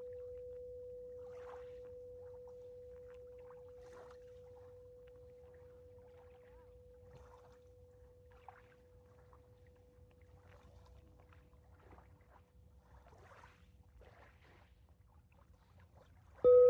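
A struck singing bowl ringing one steady tone that slowly fades away, then struck again near the end, suddenly loud with a higher overtone ringing above it. Faint scattered rustles sit underneath.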